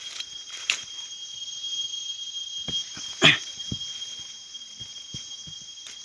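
Steady high chirring of field insects, with scattered small clicks and rustles close to the microphone and one short, sharp, louder sound about three seconds in.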